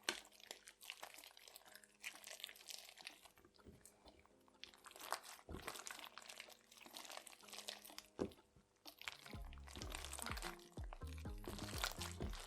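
Crunchy slime with beads and little bells mixed in being worked, giving irregular crackles and clicks. Background music with a low bass line comes in about nine and a half seconds in.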